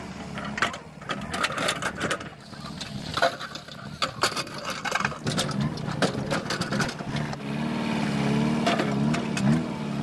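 JCB 3DX backhoe loader's diesel engine running, becoming louder and steadier about halfway through, with changes in pitch near the end. Scattered sharp knocks and clatter run over it.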